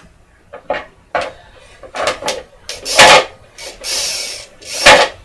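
Board game pieces and packaging being handled: a few light clicks, then louder scraping knocks and rustles, loudest about three seconds in and again near the end.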